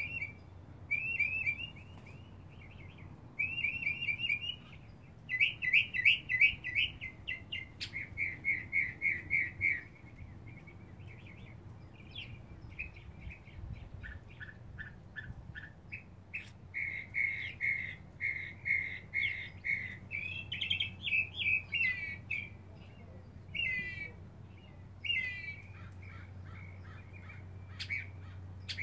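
Mockingbird singing: a long string of varied phrases, each a quick run of the same note repeated several times, switching to a new phrase every second or two, with short pauses between some.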